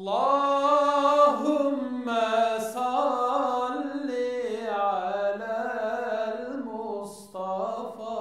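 A single unaccompanied voice singing a religious chant in long, held, ornamented notes that slide between pitches, pausing for breath twice.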